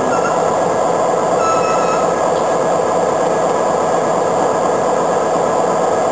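Norfolk Southern GP38-2 diesel-electric locomotive with its EMD 16-645 engine running steadily. A brief faint squeal comes about a second and a half in.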